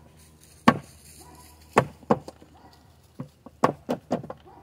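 Wooden Layens hive frame rapped against the hive body to knock dead bees off the comb: a series of sharp wooden knocks. The first is the loudest, and a quicker run of knocks comes near the end.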